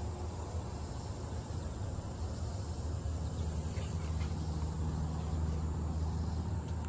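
Cummins ISB diesel engine of an International MV truck idling, heard as a steady low hum; a second low tone joins about halfway through. A faint steady high-pitched tone runs over it.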